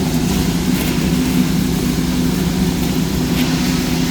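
Heavy construction machinery's engine running steadily, a constant low drone with no revving or change.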